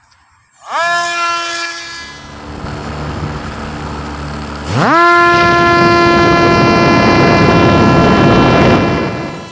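Electric motor and propeller of a homemade RC SU-27 foam plane spooling up to a high whine at launch, easing back, then throttling up again a few seconds later and holding high before dropping off near the end. Heard from a camera riding on the plane, with a rush of air over it.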